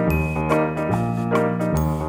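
Background music: a tune of quick pitched notes over a bass line that changes note about once a second.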